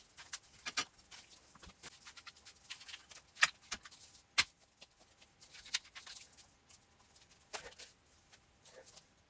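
Metal hand tools clicking and tapping irregularly on the front hub while trying to work a seized ABS wheel speed sensor loose, with two sharper knocks a little after three and four seconds in.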